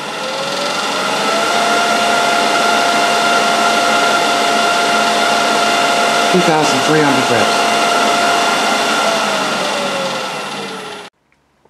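Axminster AT508WL woodturning lathe with its drive belt on the middle pulley, spinning up with a rising whine and then running steadily at speed. Near the end it winds down with a falling whine, then cuts off suddenly.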